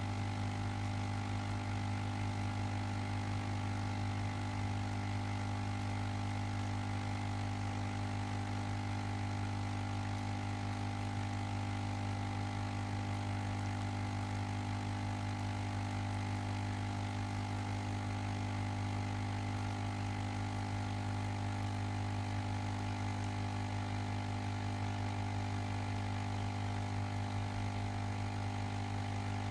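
Ozone generator running: a steady electrical hum with a strong low drone and a set of steady higher tones, unchanging throughout.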